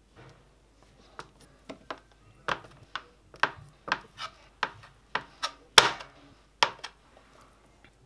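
Chef's knife slicing through a block of cheese and knocking on a plastic cutting board: a run of sharp knocks, about two a second, the loudest about six seconds in.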